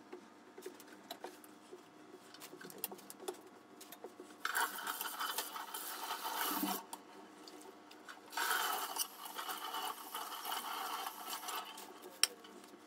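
Faint snapping and rustling of fresh parsley being picked over by hand, then a kitchen tap running twice for a couple of seconds each, water splashing onto a cloth held under it.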